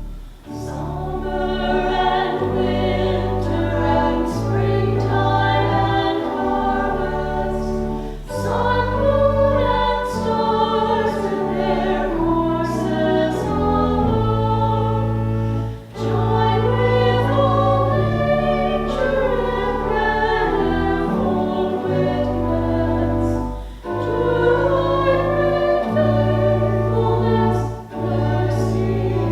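Choir singing a hymn over held chordal accompaniment, phrase by phrase, with a short break between phrases about every eight seconds.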